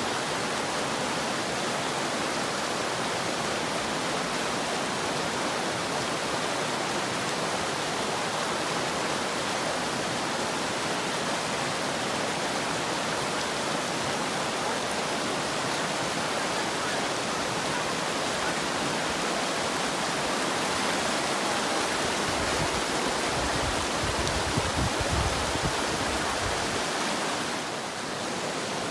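Steady rushing of a mountain stream, an even hiss of flowing water. Some low rumbling joins it about three-quarters of the way in.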